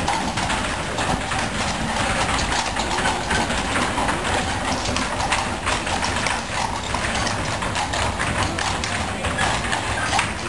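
Shod hooves of a coach-horse team clip-clopping on cobblestones, a dense run of clattering steps, with the coach's wheels rolling over the cobbles.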